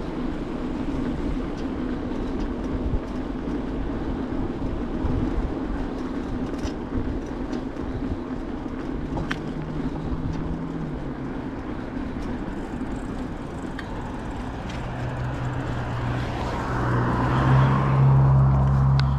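Bicycle rolling over stone paving: a steady rumble and rattle with scattered clicks. A low steady hum builds over the last few seconds.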